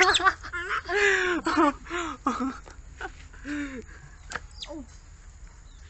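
Baby macaque giving a quick string of short, high calls, many falling in pitch, one after another for about four and a half seconds before going quiet.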